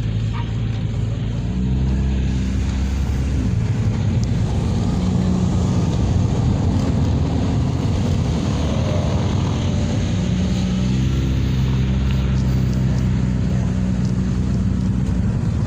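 Car engine and road noise heard from inside the cabin while driving: a steady low engine hum over a rushing of tyres and wind, the hum fading and coming back a couple of times as the engine speed changes.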